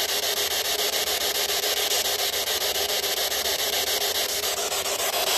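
P-SB11 spirit box radio sweeping through the radio band, giving a steady hiss of static chopped into rapid, even pulses several times a second as it skips from station to station.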